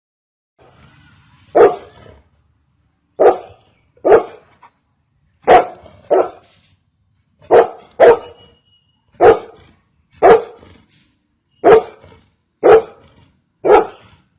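Golden retriever barking: twelve single loud barks, about one a second, some in quick pairs, with a faint low rumble just before the first.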